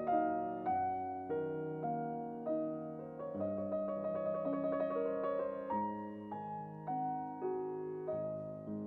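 Slow, gentle piano music: single notes and chords struck at an even, unhurried pace, each left to ring and fade.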